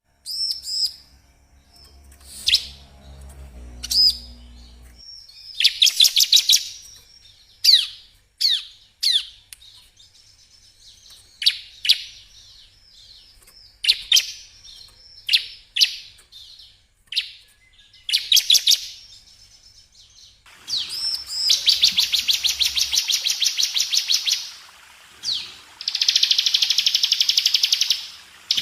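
Bar-winged prinia (ciblek) song: sharp, high, downward-sweeping chirps, then two long, rapid, rattling trills near the end, the fast 'ngebren' trill prized in this bird's training recordings.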